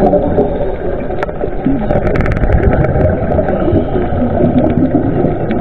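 Underwater sound picked up by a diver's camera in its housing: a steady, muffled water rush with scattered sharp clicks.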